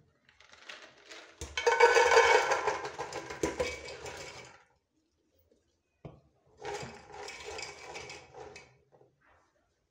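Raw beans poured from a plastic bowl into an aluminium pressure-cooker pot, rattling against the metal in two pours. The first pour is long and loud; the second, softer one comes about six and a half seconds in.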